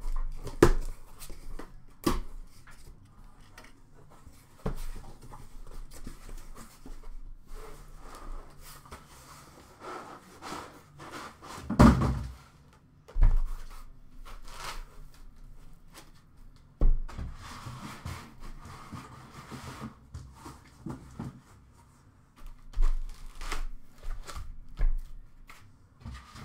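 Cardboard shipping box and its foam packing being opened and handled: scattered knocks, thumps and rustles, the loudest a heavy thump about halfway through.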